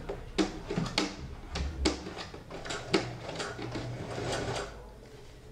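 Sharp clicks and knocks, about one a second, of thick denim being handled and guided at a domestic sewing machine, with no steady stitching run.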